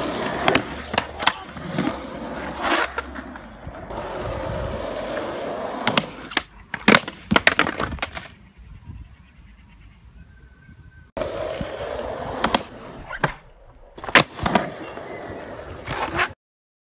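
Skateboard wheels rolling on asphalt, broken by repeated sharp clacks of the board hitting the ground. The sound drops much quieter for a few seconds in the middle and cuts off suddenly near the end.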